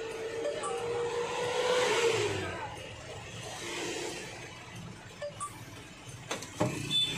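Road and traffic noise heard from a moving truck: a steady whine for the first two seconds, then a swell of passing-traffic noise about two seconds in and another about four seconds in. A few sharp knocks come near the end.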